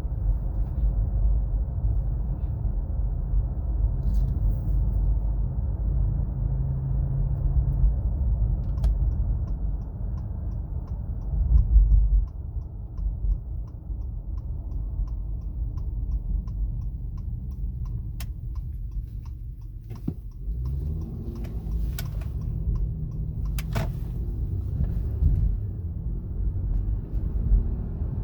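Cabin road noise of a 2017 Acura MDX while driving: a steady low rumble with a droning whine that comes and goes with road speed. The owner places the whine at the front passenger side, and it is still there with each tire a couple of PSI lower.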